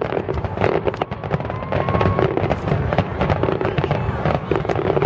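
Fireworks finale barrage: aerial shells bursting in rapid, overlapping bangs, several a second.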